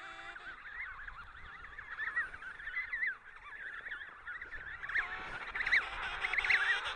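Emperor penguin colony calling: many overlapping warbling calls, growing louder over the last two seconds.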